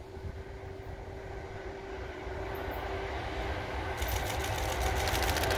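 Electric-locomotive-hauled container freight train approaching, its running noise growing steadily louder with a steady hum. About four seconds in, a rapid, even clicking of wheels on the rails sets in.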